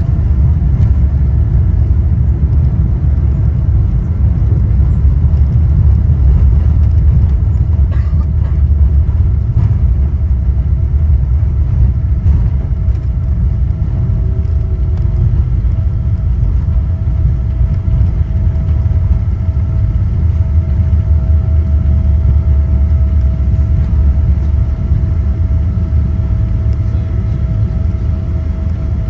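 Cabin sound of a Boeing 777-200ER rolling along the runway after touchdown with its spoilers raised: a loud, steady rumble from the wheels and airframe with a thin, steady engine tone above it, easing slightly near the end as the aircraft slows.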